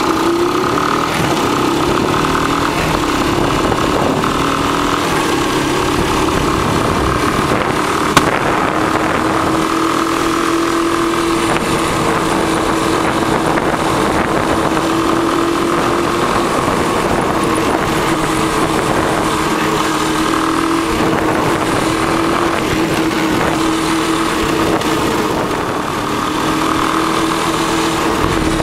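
Honda ATC200 three-wheeler's single-cylinder four-stroke engine running steadily through its stock exhaust, the pitch wavering only slightly, with one sharp click about eight seconds in. The engine sounds quiet because the leak at the front exhaust pipe has been sealed.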